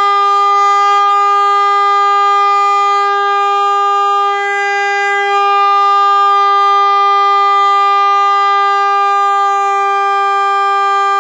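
Stebel Magnum car horn, powered by a small 12-volt battery, sounding one long, loud, steady blast on a single pitch.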